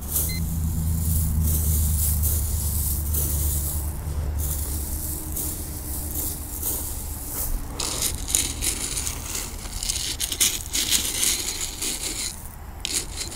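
Gravel scraping and rattling in repeated strokes as it is dug out to recover a coin the metal detector has found. A low, steady vehicle drone sounds under it for the first four seconds or so, then fades.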